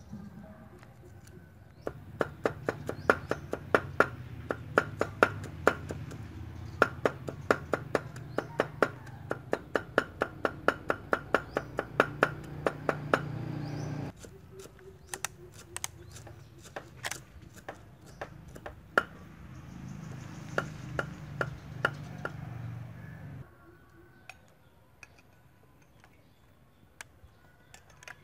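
Meat cleaver chopping peeled garlic on a wooden chopping block, a fast even run of strikes at about three a second, then slower, scattered strikes that stop about two-thirds of the way in.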